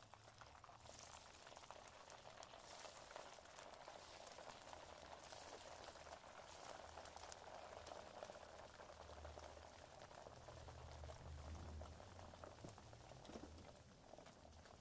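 Breadcrumb-coated fried-milk cubes deep-frying in hot oil: a faint, steady sizzle with fine crackling and bubbling.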